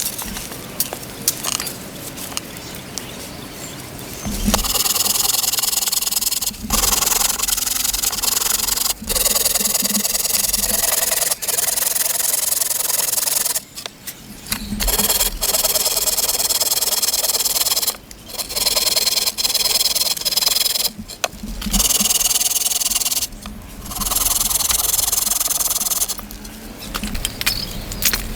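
Scraping and rubbing on wood in spells of one to three seconds, with short pauses between them.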